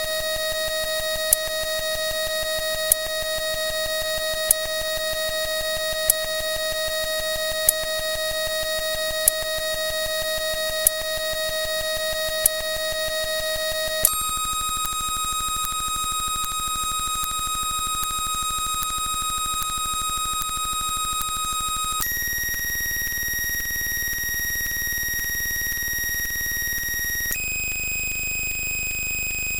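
Synthesized electronic tone held steady, stepping up to a higher pitch three times: about halfway through, again some eight seconds later, and once more near the end. During the first half a sharp click sounds about every second and a half, over a fast, even ticking.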